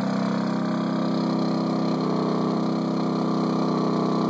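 Champion 2000-watt inverter generator engine running steadily, goosed up to a higher speed in economy mode under the load of a WFCO converter charging deep-cycle batteries.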